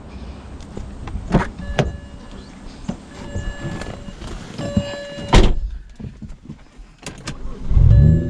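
Clicks and knocks of a car interior being handled, with a sharp thump a little past halfway, like a door shutting. Near the end the BMW 335i's twin-turbo inline-six starts, its pitch rising as it catches and then settling into a steady idle.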